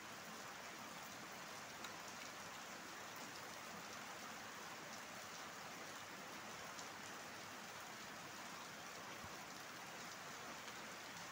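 Faint, steady hiss of background noise, with one small click about two seconds in.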